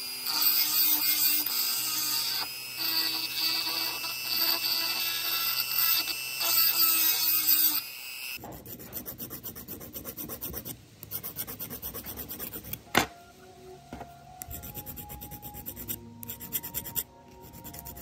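A handheld rotary tool runs steadily on a small pipe fitting. About eight seconds in it cuts off, and a small flat file is rubbed by hand back and forth over a silver pipe ferrule in quick, short scraping strokes.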